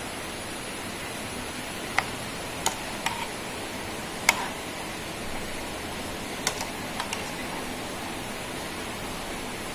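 A steady hiss with about six light clicks of a spoon against a plastic bowl as bread is turned in beaten egg, the sharpest about four seconds in.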